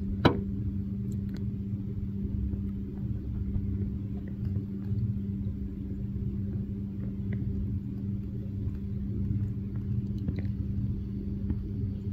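Small boat's motor running steadily: a low rumble with an even hum over it. A single sharp knock comes just after the start.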